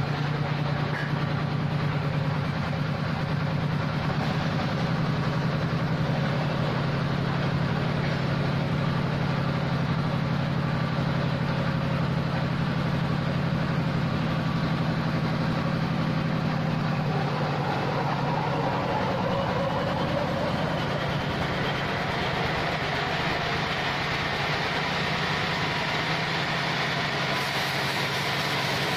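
Portable horizontal bandsaw mill (gergaji selendang) running steadily with a low hum; its sound shifts a little past halfway through.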